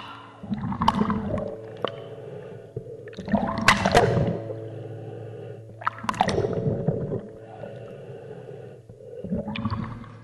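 Bath water sloshing and gurgling around a camera held at the waterline, in four surges about every three seconds, over a steady low hum.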